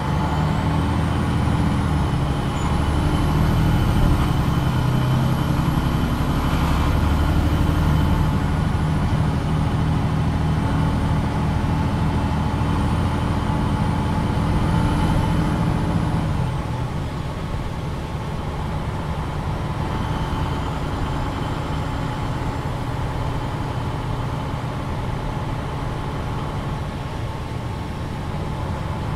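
MAN NG 313 articulated bus heard from on board: its diesel engine pulls hard, with a thin high whine rising and falling above it. About two-thirds of the way through, the engine sound drops off to a quieter, steady run.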